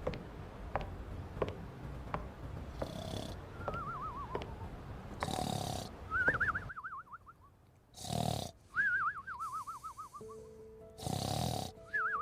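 Cartoon snoring sound effect: a rasping snore followed by a warbling, falling whistle, repeated several times. Soft regular ticks come first, and steady music tones join near the end.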